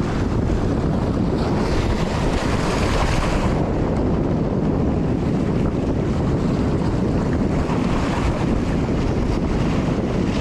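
Strong wind buffeting the microphone, a steady loud rumble with a gust of brighter hiss about two seconds in, over waves washing on the shore.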